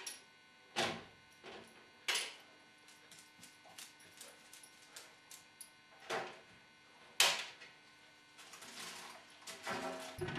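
Oven door knocking and rattling as a dog paws it open and steps onto the lowered door: several sharp clunks a second or more apart, the loudest about seven seconds in, with lighter clicks between. Near the end a paper bag rustles as the dog pulls it from the oven.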